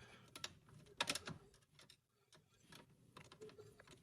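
Faint, scattered clicks and ticks of a screwdriver working a loose screw on a rim panic exit device, with a small cluster about a second in.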